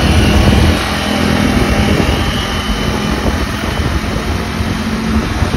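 Motorcycle engines running at road speed with wind rushing over the microphone, a steady low engine hum under a dense rumble.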